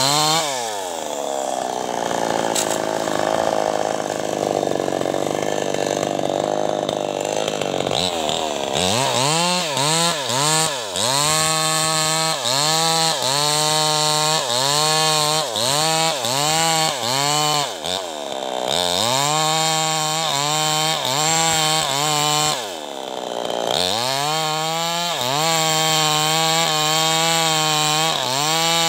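New West 588 two-stroke chainsaw cutting into a teak trunk. The engine drops to a steady lower speed for several seconds near the start, then revs up and down about once a second as it saws, dipping briefly twice before picking up the same pattern again.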